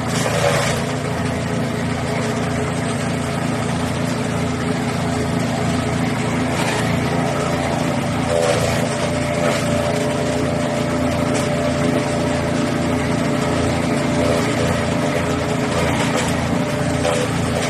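The 13 HP gasoline engine of a wood chipper running steadily, with a few faint knocks.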